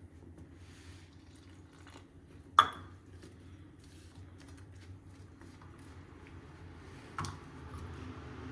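Kitchenware clinking: one sharp, loud clink about two and a half seconds in and a softer one near seven seconds, over a faint low hum.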